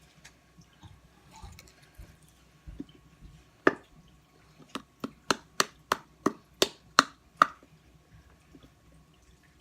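A clear-glue bottle being emptied into a bowl: after a quiet start, a run of about ten sharp clicks and wet plops, roughly three a second, as the last of the glue is worked out of the bottle.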